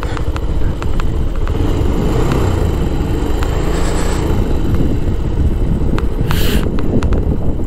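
Motorcycle running along the road, heard by the rider, with steady rumbling wind on the microphone.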